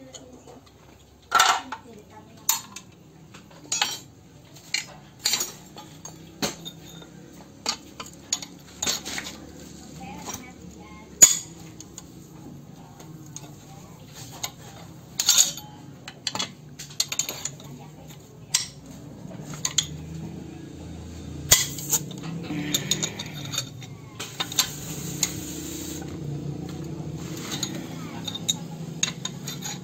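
Steel hand tools and loose bolts clinking against the engine block as the crankshaft main bearing cap bolts are undone: a string of sharp, irregular metallic clinks about a second apart.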